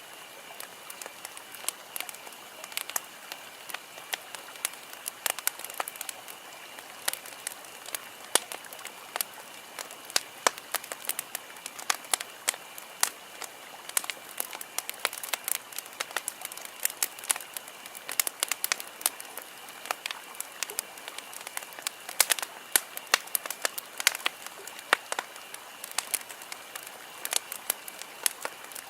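Wood campfire crackling and popping: a dense, irregular run of sharp snaps over a soft steady hiss.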